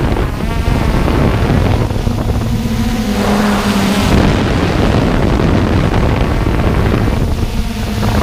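Hubsan X4 Pro quadcopter's motors and propellers running in flight, with loud wind buffeting on the microphone and a steady low hum.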